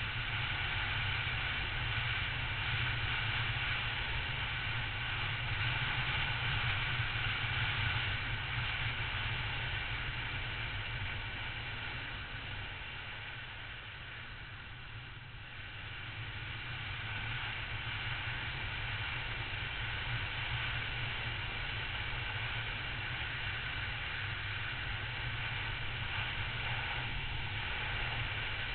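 Riding noise from a Triumph Tiger motorcycle at road speed: steady wind rush on the microphone mixed with the engine's drone. It eases off about halfway through as the bike slows into a bend, then builds again.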